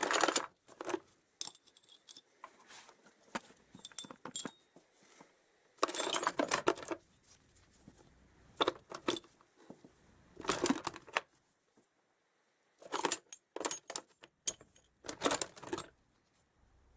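Small loose metal motorcycle parts clinking and rattling as they are handled and sorted, in about seven short bursts with quiet gaps between, some pieces ringing briefly.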